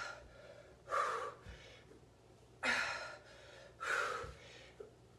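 A woman breathing hard from exertion while doing dumbbell snatches: four short, forceful breaths, one to two seconds apart, one with each rep. Soft low thumps fall between some of the breaths.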